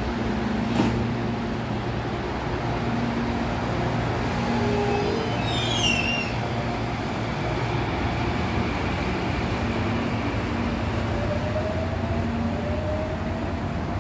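Electric commuter train standing at a station platform, humming steadily. There is a click about a second in, a brief high falling squeal around six seconds in, and a faint rising whine near the end.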